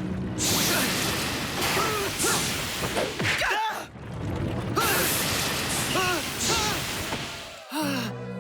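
Animated battle sound effects: a run of whooshes, about half a dozen, mixed with short rising-and-falling creature shrieks. The sound drops out briefly twice, a little before the middle and near the end.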